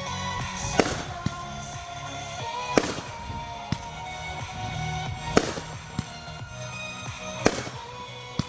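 Consumer fireworks going off: a series of sharp bangs, the biggest about every two seconds with smaller pops in between. Music plays underneath.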